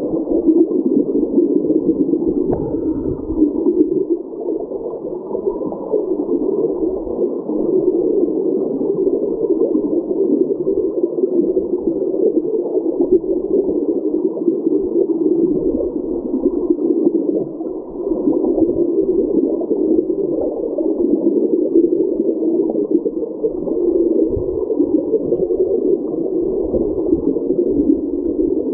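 Creek current heard underwater: a steady, muffled rushing churn with no highs, and irregular low bumps and knocks mixed through it.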